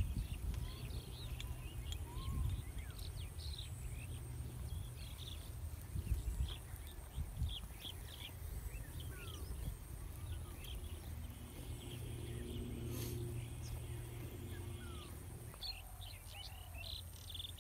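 Many short, high bird chirps and calls scattered throughout, over a low rumble of wind on the microphone.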